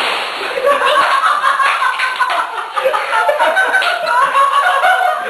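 A breathy hiss fades out in the first half second, then an audience laughs, many voices overlapping.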